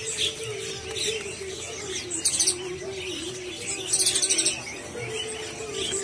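Zebra finches chirping in a cage, with two quick rattling trills about two and four seconds in, over a low wavering hum.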